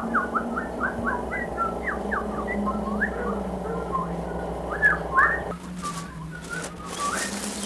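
Birds chirping in quick, short rising notes, over a steady low hum that stops about five and a half seconds in.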